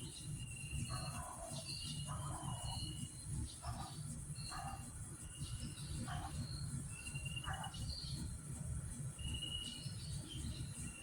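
Birds calling in short repeated chirps about once a second, over a steady high insect drone and a low rumble.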